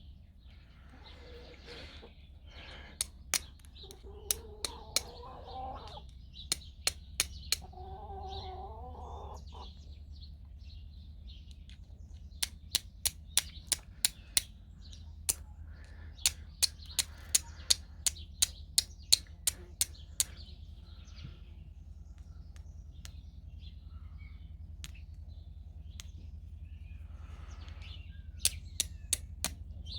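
Carbon-steel mini striker struck against a flint shard in rapid runs of sharp clicks, several strikes a second, throwing sparks at amadou to catch an ember. A bird calls twice in the background, about four and eight seconds in, with faint chirping.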